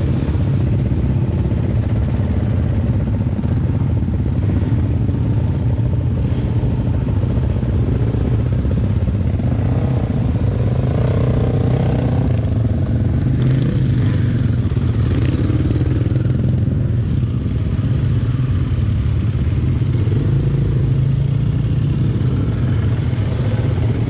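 Dirt bike engines running steadily, with other trail motorcycles riding past and their engine notes rising and falling around the middle.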